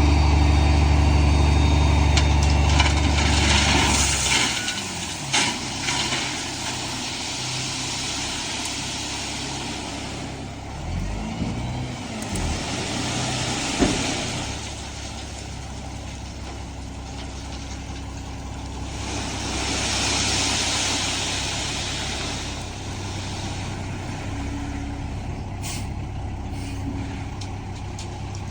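Heavy truck engine running, loud and low for the first four seconds, then quieter, with a few long bursts of air hiss, typical of a truck's air brakes.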